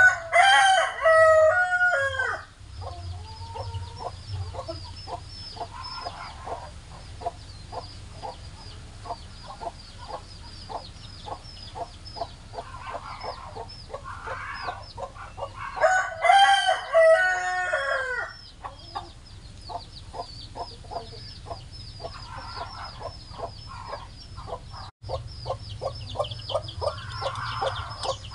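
A rooster crowing twice: one long crow right at the start and another about 16 seconds in. Between the crows, chickens cluck faintly over a steady, rapid ticking.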